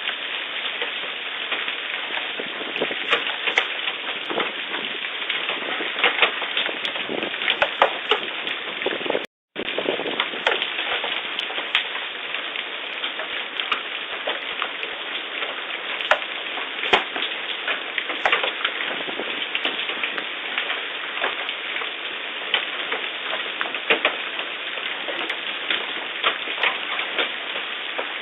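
Hailstorm: a dense, steady downpour of rain and hail with many sharp, irregular impacts of hailstones striking hard surfaces. The sound drops out briefly about nine seconds in.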